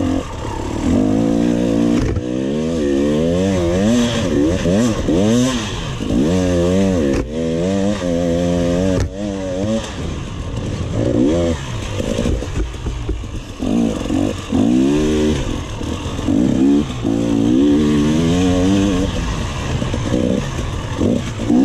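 Enduro motorcycle engine heard from on board, its pitch rising and falling every second or two as the throttle is opened and closed along a dirt trail.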